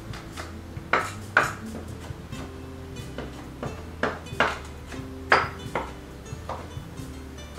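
A cleaver chopping garlic cloves and pepper-grass greens on a wooden cutting board, with sharp irregular knocks of the blade on the board about once a second. Soft background music plays underneath.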